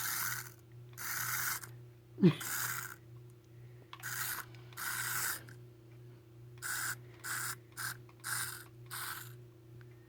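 Cat hissing in a series of short bursts, with one short falling cry about two seconds in.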